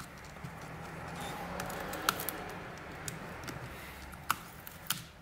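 Plastic pry picks working under the display of a Samsung Galaxy Tab A 10.1 (2016), the screen's adhesive separating with soft scraping and crackle as it lifts from the frame. A few sharp clicks of plastic tool against the frame, the loudest about two seconds in.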